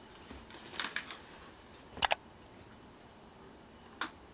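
Metal curtain grommets clicking along a metal curtain rod as curtains are drawn open: a short clatter about a second in, a sharp double click at two seconds, and one more click near the end, over quiet room tone.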